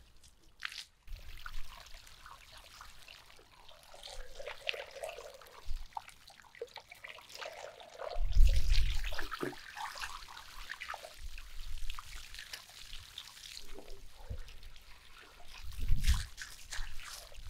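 Water from a garden hose splashing and trickling over a large sturgeon head and into its open cavity, with two louder bursts, one about halfway through and one near the end.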